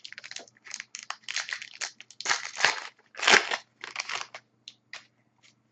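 A trading card pack wrapper being torn open and crinkled by hand, in a run of irregular crackling rustles that stop shortly before the end.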